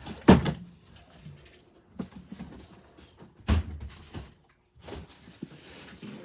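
Two loud thumps about three seconds apart, with a few lighter knocks between and after, like things being set down or bumped in a room.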